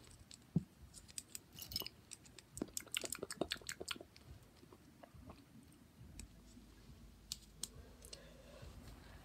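Plastic Lego pieces clicking and rattling as they are handled and fitted together: a quick run of small sharp clicks in the first few seconds, thinning out to scattered clicks after about four seconds.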